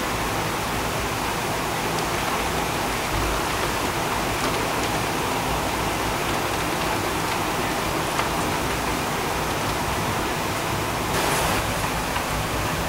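Heavy rain falling steadily, a dense even hiss of rain with a brief louder swell near the end.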